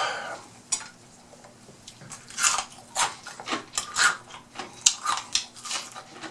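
Close-up chewing and biting of fried fish: a run of irregular crunching and mouth sounds from about two seconds in.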